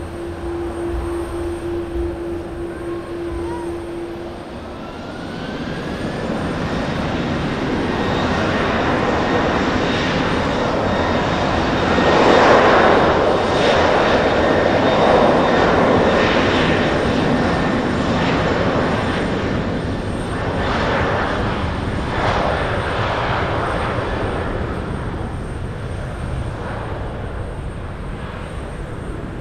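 Airbus A330-300 jet airliner's twin engines spooling up for takeoff: a steady engine tone gives way about five seconds in to a rising whine and swelling jet noise. The noise peaks as the airliner rolls past at speed, then slowly fades as it accelerates away down the runway.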